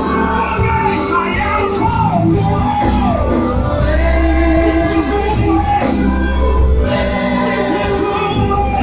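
Live gospel music: voices singing long held, sliding notes over a band with a heavy bass, loud and unbroken.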